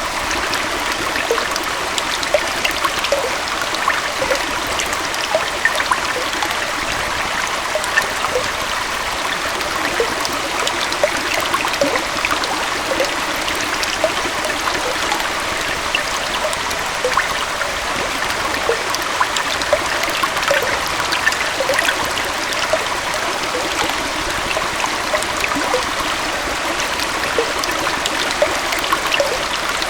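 Small waterfall and stream flowing steadily, a continuous rush of water with many small splashes and bubbling trickles through it.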